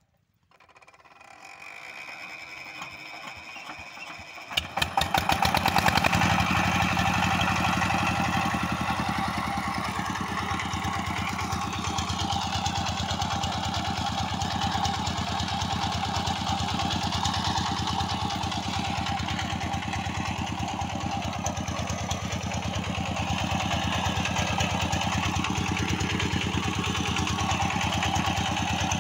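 Sifang single-cylinder diesel engine driving a vertical irrigation pump being started: a rising whir, then it fires with a quick run of knocks about four and a half seconds in and settles into steady running.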